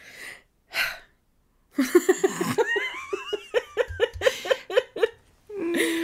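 A person laughing in a fit of giggles: two quick breaths, then from about two seconds in a run of short pitched laughs, about three to four a second, ending in a held voiced note near the end.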